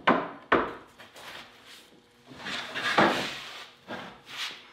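Wooden 2x4 table legs knocking into place twice near the start, then a wooden extension tabletop scraping and sliding over the workbench as it is pushed into position.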